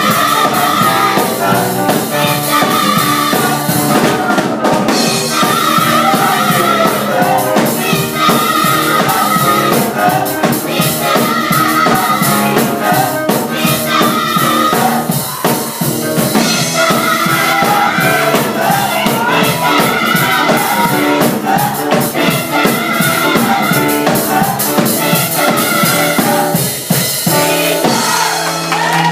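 Young adult gospel choir singing with a live band, with drums keeping a steady beat.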